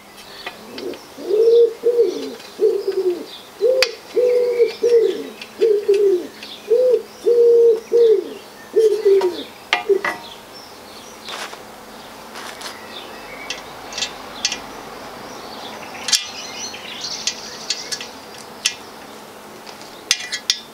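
A pigeon cooing: a run of about a dozen low, even coos over the first ten seconds. Light metallic clicks and clinks come from the metal chair frame being handled, more of them in the second half.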